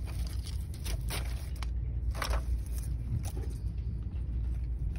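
Artificial fall picks rustling and crinkling as they are handled and pulled from a display box: a few short rustles, the longest a little over two seconds in, over a steady low rumble.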